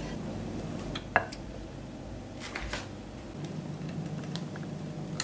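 A few light clicks of a metal whisk against a glass bowl as thick custard is stirred, over a low steady hum.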